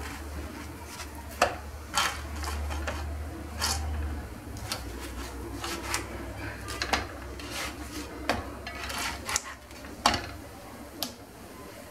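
Plastic spatula scraping and tapping on a nonstick frying pan as semolina harcha cakes are turned over: a dozen or so short, irregular scrapes and knocks over a low steady hum.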